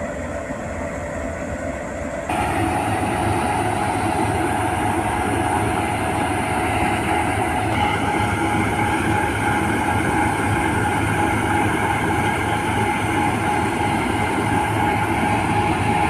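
Malkit combine harvester running steadily while it unloads threshed wheat through its auger, a continuous machinery drone with several held tones. It gets louder suddenly about two seconds in, then stays even.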